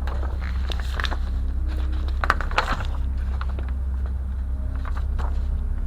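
Light clicks and rustles of small parts being handled, a few short ones spread out, over a steady low hum.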